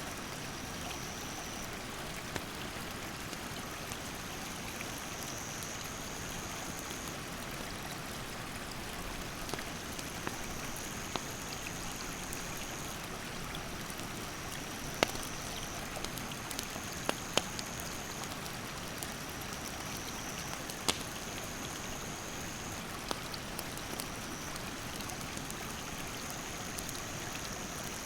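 Mountain stream rushing steadily, with a wood campfire crackling in sharp snaps and pops every few seconds. An insect gives a high, steady trill in long stretches broken by short gaps.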